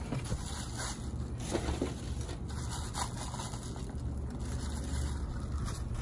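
Plastic being handled: a few soft crinkles, scrapes and light clicks, over a steady low rumble of wind on the microphone.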